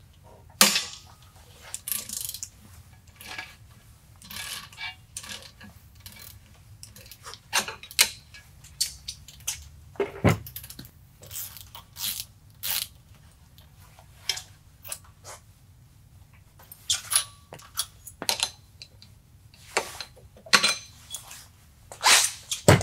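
Scattered, irregular metallic clicks and clinks of a ratchet wrench and socket working loose the bolt in a Mud Buddy mud-motor transmission's pulley, with the tools knocked and handled between strokes.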